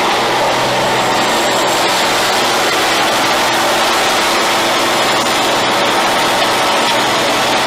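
Freightliner truck's Detroit diesel engine running at a steady, unchanging pitch as its drive wheels spin in a burnout, over a dense hiss of spinning tyres.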